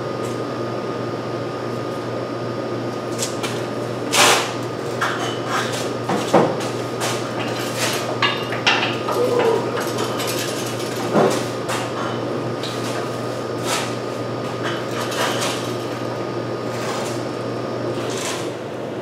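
Irregular metal clanks and knocks from handling a V8 engine hanging on an engine hoist, scattered through most of the stretch, over a steady background hum.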